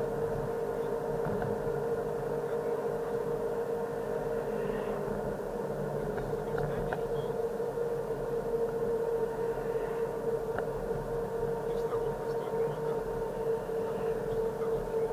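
Steady in-cabin drive noise of a car cruising along a road: engine and tyre noise with a constant hum, heard from inside the car.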